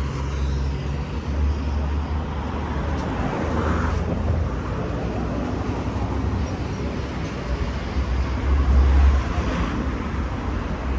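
Steady low rumble of a vehicle under way, engine and road noise, with a noisy hiss over it that swells a little about nine seconds in.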